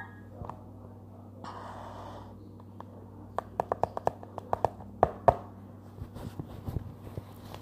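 Fingertips tapping on a tablet's touchscreen: a quick run of sharp taps lasting about two seconds, starting about three seconds in, over a faint steady hum.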